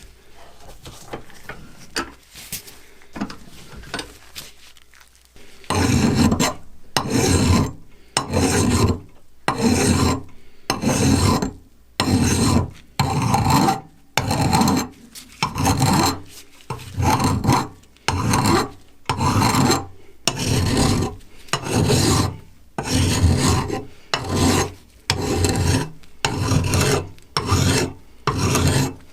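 Hand file worked in long, even strokes, about one a second, starting about five seconds in, after a few quieter seconds of light clicks and handling.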